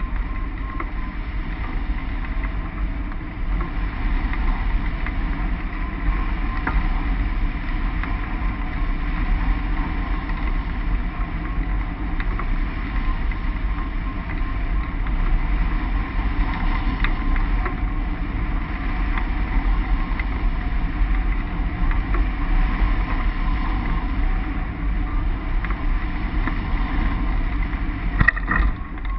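Wind rushing over a microphone on a hang glider's wing in flight: a steady rumbling buffet with a faint steady whistle. A few sharp knocks near the end.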